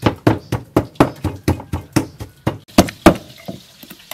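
Wooden pestle pounding in a wooden mortar, working salt, sugar and chicken powder into a crushed red chili and garlic paste: rapid dull knocks, about six a second, easing to a few lighter taps after about three seconds.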